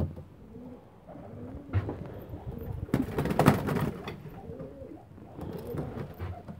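Iranian high flyer pigeons (Silver Toghi) cooing repeatedly in low, rolling calls. A louder rustling burst comes about three seconds in.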